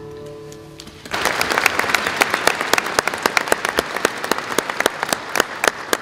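The last chord of an acoustic guitar dying away, then an audience breaking into applause about a second in.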